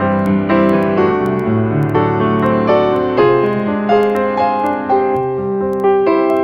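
Background piano music, a melody of struck notes that ring and fade.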